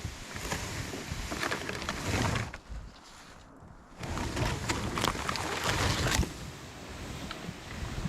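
Wind buffeting the microphone in uneven gusts outdoors in snowy forest, easing off for about a second and a half near the middle.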